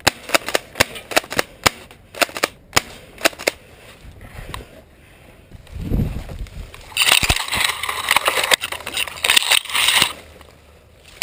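Airsoft guns firing: a quick, uneven string of sharp cracks, about three a second, over the first few seconds. Later a loud hissing rush of noise lasts about three seconds.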